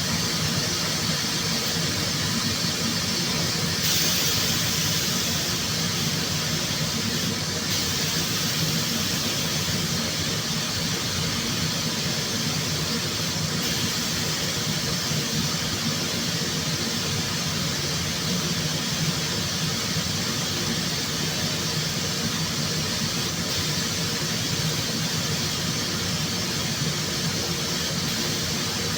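Steady hum and hiss of workshop equipment running during bodywork, with a louder, brighter hiss from about four to seven and a half seconds in.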